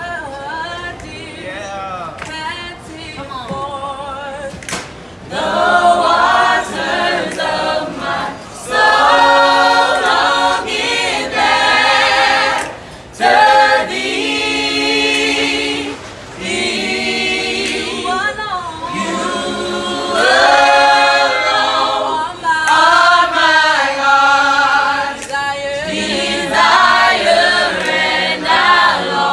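Student gospel choir singing a cappella in harmony. It starts softer, then the full group comes in much louder about five seconds in, singing in phrases with short breaks between them.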